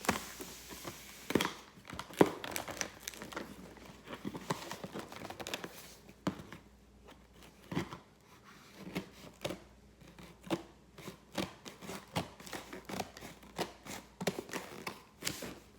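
Packaging being handled and torn open: crinkling and tearing, with many irregular sharp clicks and taps throughout.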